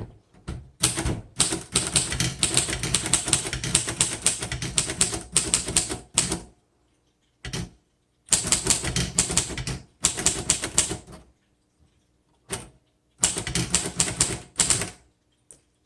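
1936 Royal Model O manual portable typewriter being typed on: three long runs of rapid keystrikes, with a few single strokes and short pauses between them.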